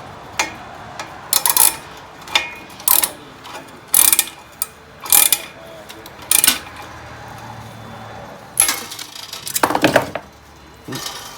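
About a dozen sharp metallic clicks and short rasps at uneven intervals: a locking tie tool cinching a metal tie around exhaust wrap on an exhaust pipe.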